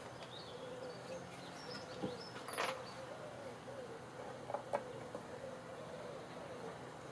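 Birds chirping faintly, with a short scraping rush about two and a half seconds in and a few sharp knocks.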